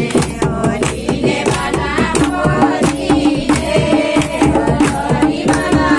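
Music with fast, continuous drum beats over a steady held note.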